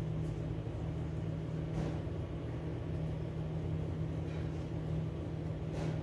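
Steady low hum of a running machine, with faint light clicks about two seconds in and near the end.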